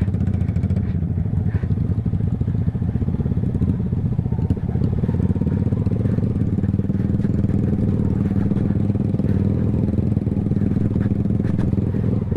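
Motorcycle engine running at a steady, even pace under way, heard from a camera mounted on the moving bike.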